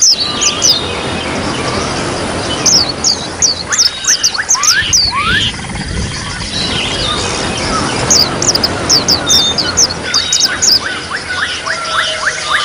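Oriental white-eye (pleci) song: phrases of rapid, high, downward-sweeping chirps, over a continuous trickling-water background.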